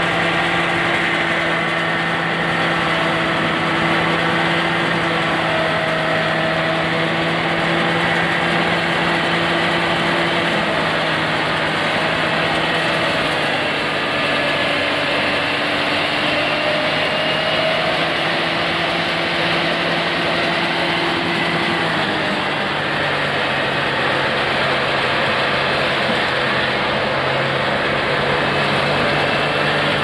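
Rice thresher running as paddy straw is fed in: a continuous engine-driven mechanical hum with a rushing noise over it. Its pitch dips slightly twice.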